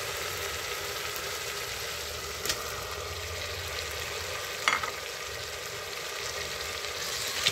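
Onion masala sizzling in mustard oil in an open aluminium pressure cooker as chopped tomatoes go in, with two sharp knocks about two and a half and nearly five seconds in.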